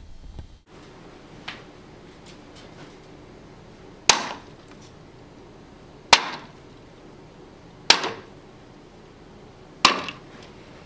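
Ping-pong balls thrown one at a time landing in a row of plastic cups of water: four sharp plunks about two seconds apart, each dying away within half a second.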